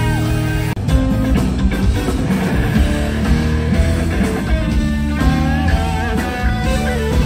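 Funk band playing, with electric guitar over bass and drums. The sound drops out for an instant about a second in, then the music carries on.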